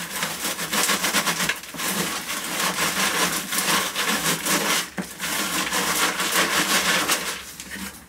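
Potting soil being rubbed by hand through the wire mesh of a garden sieve: a steady, dense scratchy rustle with a couple of brief pauses, easing off near the end. The soil is being sifted to strain out the big chunks.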